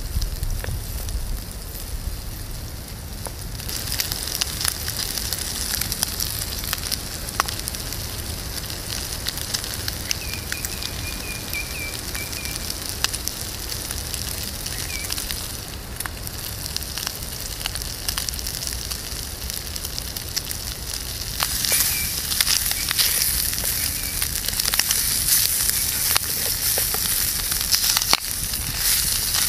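Bacon sizzling and frying in a small titanium frying pan over a wood fire in a titanium gasifier stove, with the burning wood crackling in sharp little pops. The sizzle grows louder about three-quarters of the way through.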